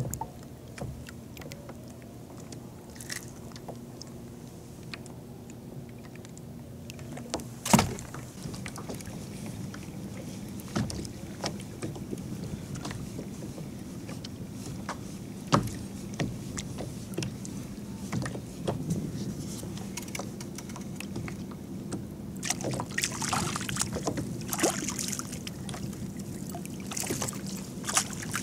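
Small waves lapping against a plastic kayak hull, with a few sharp knocks of gear on the boat. In the last several seconds there is busier splashing as hooked fish are drawn up to the surface.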